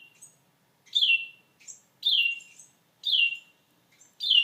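A small bird calling over and over: a short note that falls in pitch, repeated about once a second, with fainter, higher chirps between the calls.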